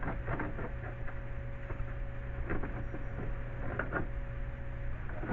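Faint taps and scrapes of hands working a plastic windshield-wiper cowl housing into place under the base of the windshield, over a steady low hum. Two of the taps, about midway and near the end, stand out.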